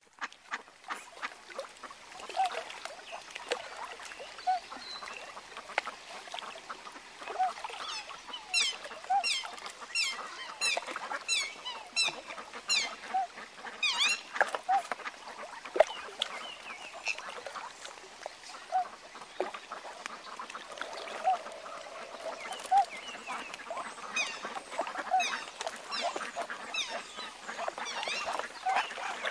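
Waterfowl calling: short low calls every second or two, with runs of high, quick chirping from about a third of the way in and again near the end.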